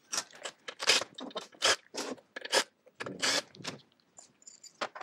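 Short, irregular scraping and rasping strokes, several a second, as the reed cage is worked loose and pulled out of the intake of an IAME KA100 two-stroke kart engine, rubbing against the aluminium crankcase. A couple of sharp clicks near the end.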